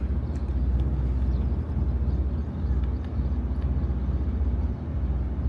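Boat engine running steadily, a low drone.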